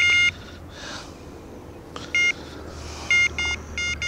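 Electronic bite alarm beeping as the line is drawn over it while the rod is handled. A rapid run of beeps stops just after the start. Single beeps come about two seconds in, and a quick series of beeps follows near the end.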